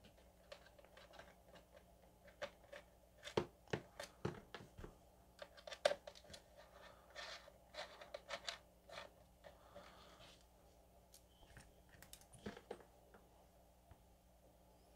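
Faint scattered clicks and scratches of a small screwdriver turning a screw out of a goggle strap mount, with hands handling the fabric strap and small parts.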